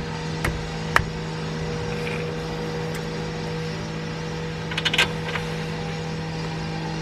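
A few sharp knocks and clinks, like tools on metal, about half a second and a second in and a quick cluster about five seconds in, over a steady hum.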